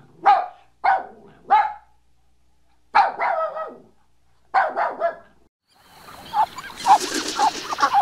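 Puppy barking: five short, high yapping barks with pauses between them, the last two longer. About two seconds before the end, Muscovy ducks take over with a quick run of short calls over a hiss.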